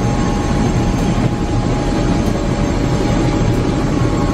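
Helicopter turbine engine and rotor running, heard from inside the cabin: a loud, steady rush with a constant whine over it.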